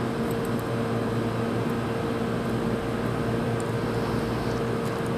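Steady hum of a room air conditioner with a constant low drone, and a few faint tiny clicks from a small screwdriver turning the watch's caseback screws.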